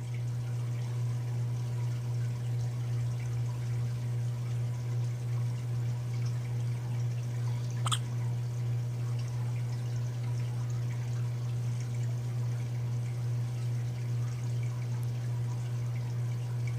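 A capuchin monkey hiccups once, a single short sharp 'hic' about eight seconds in, over a steady low hum.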